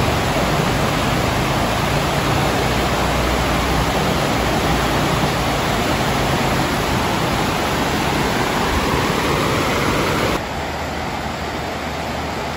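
Shallow river rushing over rocks: a steady, loud rush of water. About ten seconds in it drops to a somewhat quieter rush.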